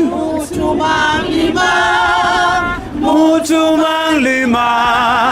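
A group of voices singing unaccompanied, a choral song in a Southern African language, holding long notes with a wavering vibrato.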